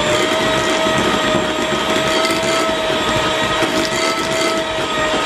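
Electric hand mixer running with a steady whine, its twin beaters churning thick cake batter in a glass bowl as the remaining flour is mixed in.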